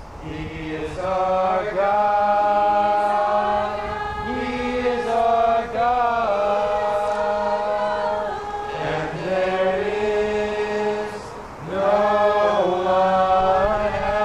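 Voices singing a slow song in long held notes, phrases pausing briefly every few seconds.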